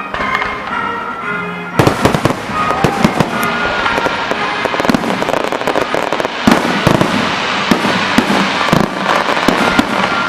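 Aerial fireworks going off in rapid succession from about two seconds in: bangs, with crackle running between them. Music plays underneath.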